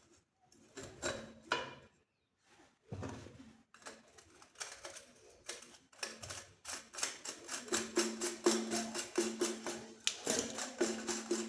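Scattered clicks and knocks, then from about halfway background music with a quick, even ticking beat over a steady low note.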